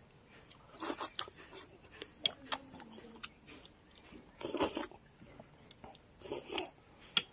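A person eating noodle soup close to the microphone: short slurps of noodles and broth from a spoon, with chewing and wet mouth clicks between them.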